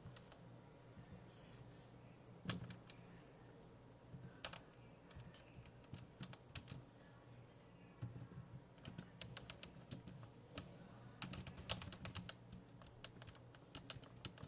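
Typing on a computer keyboard: irregular runs of key clicks, with a few louder strikes and pauses between bursts.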